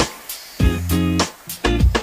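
Background music with plucked guitar and a regular beat.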